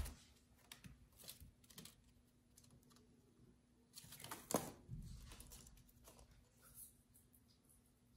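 Near silence over a faint steady hum, with scattered faint clicks and rustles. About four seconds in comes a louder scratching and a soft thud as a kitten's claws scrabble down the side of a wicker cabinet and it drops onto the floor.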